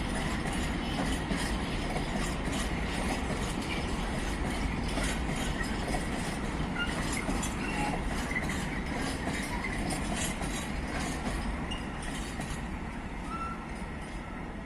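A train moving through a station, a steady rumble with rapid wheel clicks on the rails, growing a little quieter near the end.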